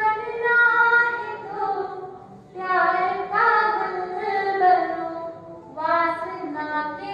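A woman singing a poem into a stage microphone in long, sustained melodic phrases, with two short breaths between them.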